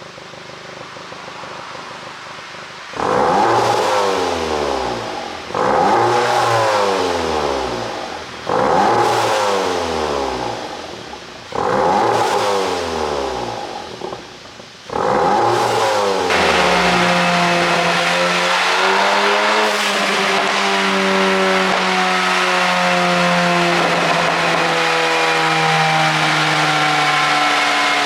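2015 Volkswagen Golf Mk7 GTI's turbocharged four-cylinder, ECU-tuned for exhaust pops and crackles, idles and is then blipped five times. The revs fall back after each blip with pops on the overrun. About sixteen seconds in it is held at high revs, running steadily, its pitch slowly sagging.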